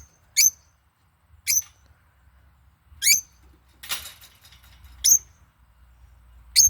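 Pet parrot giving short, sharp, high-pitched squeaky calls, five in all, about one every second and a half. A brief scratchy noise comes about four seconds in.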